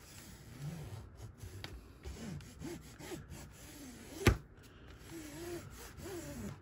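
Quiet rubbing and handling of a diamond painting canvas as a ruler is run down its fold to flatten it, under faint low murmuring from a voice. One sharp tap comes a little past the middle.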